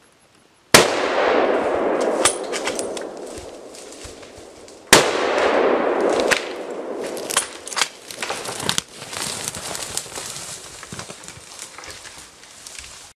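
Two rifle shots about four seconds apart, each followed by a long echo that dies away, with lighter clicks and snaps in between.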